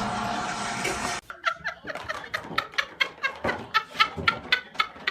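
A pet gives a quick run of short, high-pitched calls, about four a second. They start just after a dense wash of sound cuts off about a second in.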